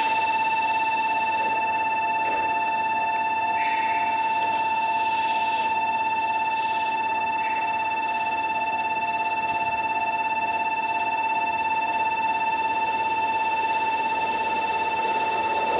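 Railway level-crossing warning bell ringing steadily with a rapid repeating electronic clang, signalling an approaching train. Near the end the rumble of a train pulling into the station grows under it.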